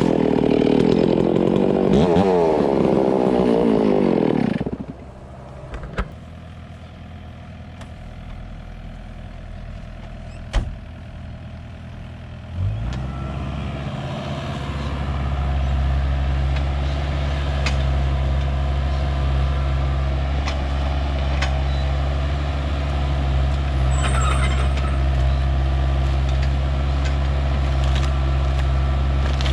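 A chainsaw running with its revs rising and falling for about five seconds, then cutting off suddenly. After a quieter stretch with a couple of knocks, an engine starts about thirteen seconds in and settles into a steady low idle.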